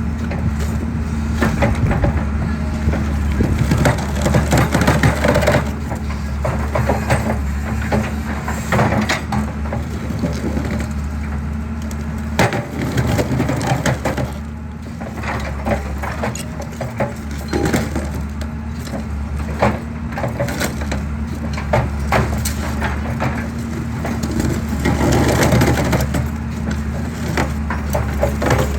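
Excavator crushing concrete: a steady engine hum under irregular sharp cracking and crunching of breaking concrete, with louder bursts of cracking twice.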